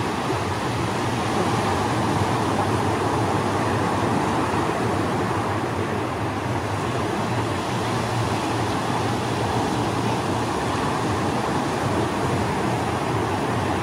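Ocean surf breaking and washing onto the beach: a steady noise with no breaks.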